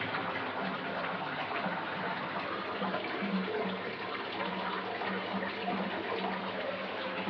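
Water pouring from a tap into a filling bathtub: a steady splashing rush, with a low hum that comes and goes.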